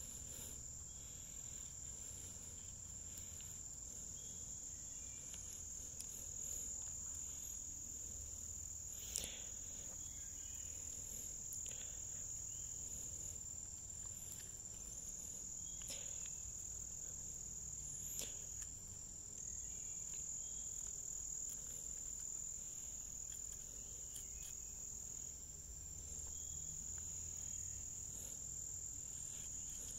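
Insects singing in a steady, high, continuous trill, with a couple of faint sharp clicks about nine and eighteen seconds in.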